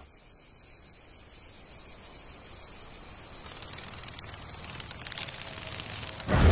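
Insects chirring in the grass: a high, fast-pulsing buzz that grows gradually louder. A brief low thump comes just before the end.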